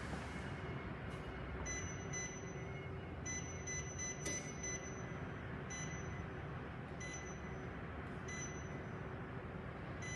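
Touch control panel of an electric convector panel heater beeping as its temperature setting is pressed up: about seven short, high beeps at irregular intervals of one to two seconds, over a steady background hiss.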